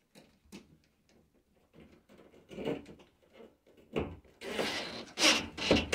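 DeWalt cordless driver run in short bursts, driving a screw for a plastic doorstop into the aluminium top track of a sliding shower door. Faint clicks at first, then the bursts grow louder over the last two seconds.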